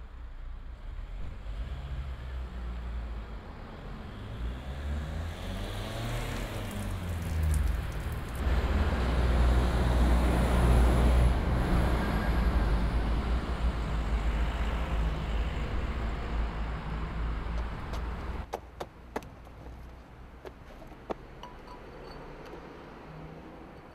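A motor vehicle passing close by, its engine note shifting in pitch as it builds to its loudest about halfway through. Near the end the sound drops away suddenly to quieter street background with a few sharp clicks.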